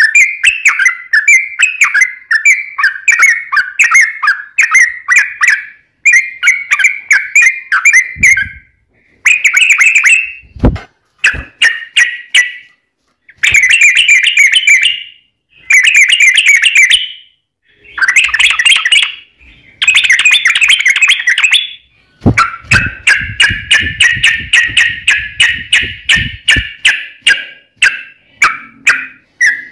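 Yellow-vented bulbul singing its long, rapid chattering song (ropel): fast runs of loud bubbling notes in phrases of one to three seconds, broken by short pauses. A couple of low thumps come about ten seconds in.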